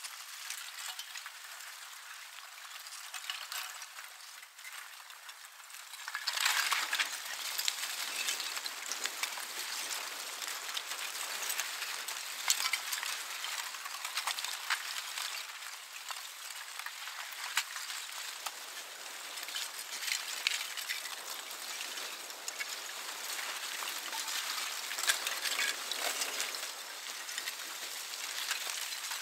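Aa lava flow advancing: its crust of loose clinker blocks clinking and crackling as they tumble and break, a steady crackle dense with small clicks that grows louder about six seconds in.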